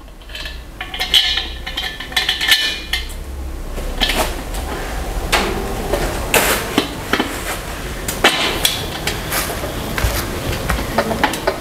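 Metal dining-chair frame being assembled by hand: irregular clinks and knocks of metal parts and fittings at the frame joints.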